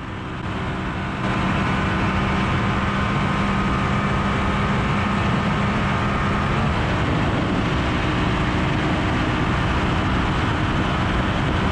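Yamaha Super Ténéré adventure bike's parallel-twin engine running hard at high speed, heard from the saddle under heavy wind noise. The engine note shifts about six and a half seconds in.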